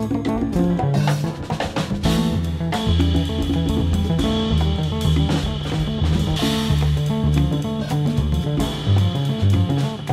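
Latin jazz ensemble playing: a Fender Jazz Bass electric bass runs busy lines of short notes over drum kit, bongos and congas.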